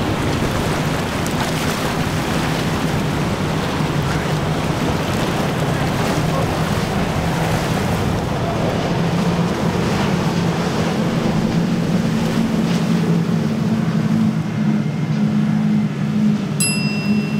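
Quad Mercury 400 outboard engines on a Freeman 42 catamaran running at speed: a steady low engine drone over the rush of water and spray off the hulls.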